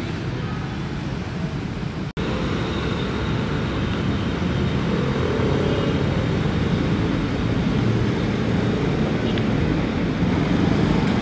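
Steady street traffic noise with a small motor scooter's engine running close by. The sound drops out for an instant about two seconds in, then carries on a little louder.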